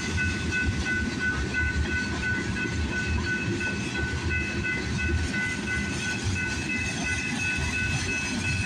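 Freight cars of a mixed freight train rolling past, a steady rumble of wheels on rail. Over it a thin high ringing repeats without a break.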